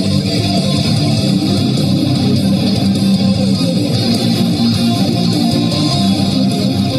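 Guitar-led music playing steadily at an even loudness.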